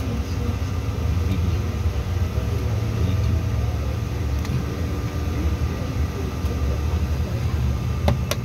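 Steady low rumble and hum inside the cabin of a CRJ900 airliner on the ground before departure, with two short clicks near the end.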